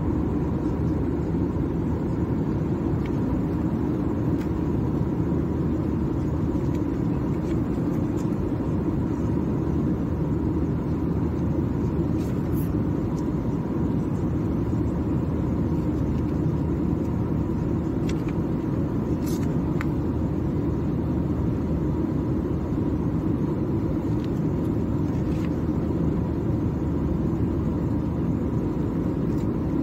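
Steady in-flight cabin noise of an Airbus A321-211 (CFM56 engines): a low, even roar of engines and airflow with a faint steady whine. A few brief rustles of magazine pages being turned sit on top.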